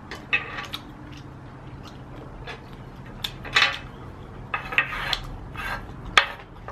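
Chopsticks and a wooden spoon scraping and tapping on a griddle plate, picking up crispy burnt rice stuck to the pan, in a string of short irregular scrapes and clicks.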